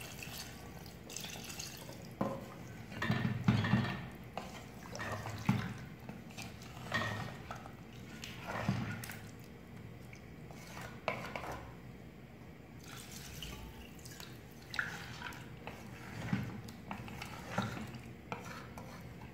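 Water being poured into a metal pressure cooker of chicken and masala, splashing, with irregular clinks and knocks of metal vessels.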